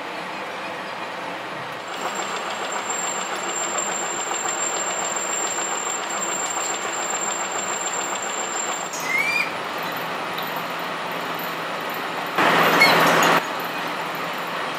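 Steady clattering machinery noise that changes abruptly about two and about nine seconds in, with a loud burst of noise lasting about a second near the end.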